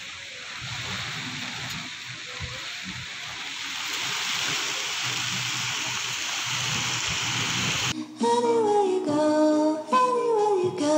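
Heavy rain falling in a steady hiss. About eight seconds in it cuts off abruptly and music with singing begins.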